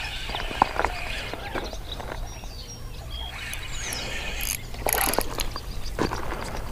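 Spinning reel being cranked as a small bass is reeled in, with faint ticking from the reel. Near the end come several louder scrapes and knocks as the fish is landed on the rocks.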